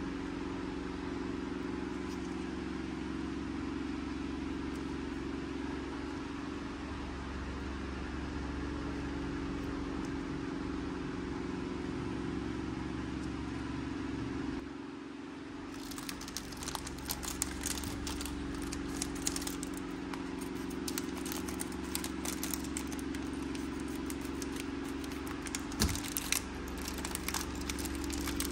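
A steady low hum, joined about halfway through by a run of crackling, crinkling and small clicks as gloved hands handle small plastic toy figures and a plastic surprise packet. There is one sharp knock a couple of seconds before the end.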